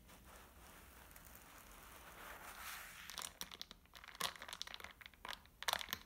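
A paper napkin wiped over a spill on a wooden table, then a metal straw stirring an iced drink in a glass mason jar, with ice cubes clinking against the glass in a quick run of sharp clicks through the second half.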